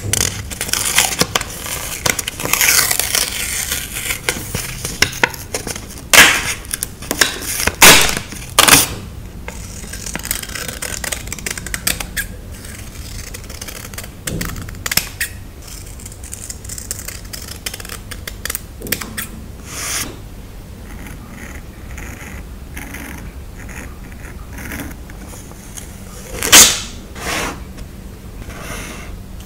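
Close-up handling of stickers and journal paper: a run of short rustles, peels and light taps, with a few louder crinkles at about six, eight and twenty-six seconds in.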